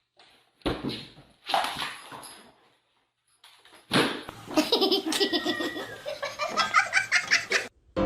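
People laughing: a couple of short outbursts, a pause, then a longer run of laughter from about four seconds in that cuts off suddenly near the end.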